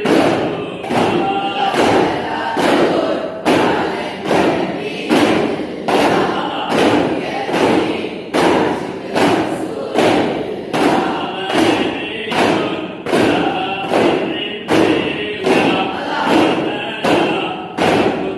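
A group of daf frame drums struck together in a steady, even rhythm, with a group of voices chanting the ratheeb in unison over the beat.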